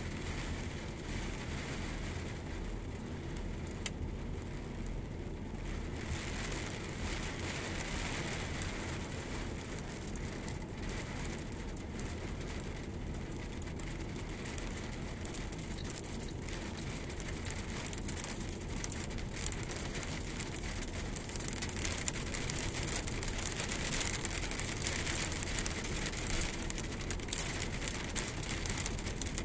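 Heavy rain falling on a flooded, puddled yard, a steady hiss over a low rumble. The rain grows heavier about two-thirds of the way through, with many sharp crackling drop hits.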